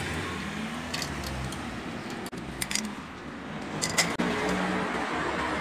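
A few light metallic clinks and jingles, about a second in, near the middle and again around four seconds in, over a steady background hiss.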